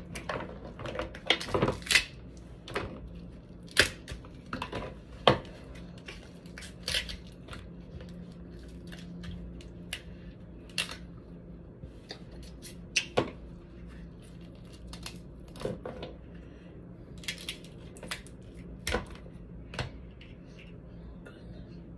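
Cooked snow crab legs being cracked and snapped open by hand and the meat pulled from the shells: irregular sharp cracks and crunches of shell, one or two every second or so, with short quieter gaps between.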